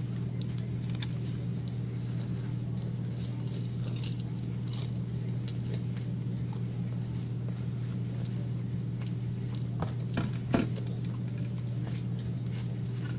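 A person eating crinkle-cut fries by hand from a foam takeout box: faint chewing and small clicks and rustles of handling over a steady low hum. There is a short run of louder clicks about ten seconds in.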